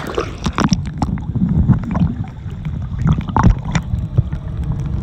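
Sea water heard through a phone microphone held underwater: a dull, muffled low rumble of moving water with scattered bubbly gurgles and crackles, a cluster near the start and another a little past three seconds in.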